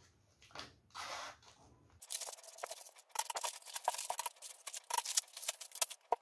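A few scissor snips into a paper mailer bag, then, from about two seconds in, a long run of crackling and rustling paper as the bag is torn and pulled open.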